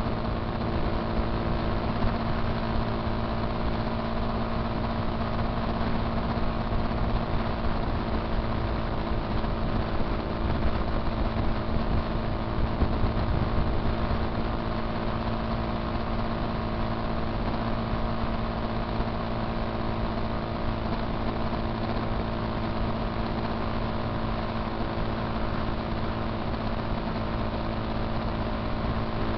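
Motorcycle engine running at a steady cruising speed, its pitch unchanging throughout, over a steady rush of wind and road noise.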